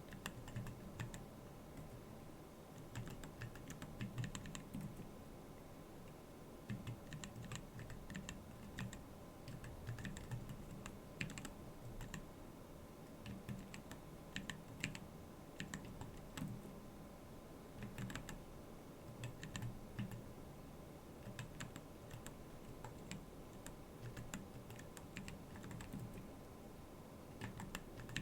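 Typing on a Keyball39 split keyboard: a continuous, irregular run of key clicks, each keystroke with a soft low thud beneath it.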